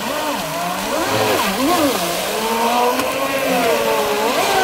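Water-cooled brushless electric motor of a HydroPro Inception RC racing boat whining at speed, its pitch rising and falling again and again as the throttle and turns change, over the hiss of spray.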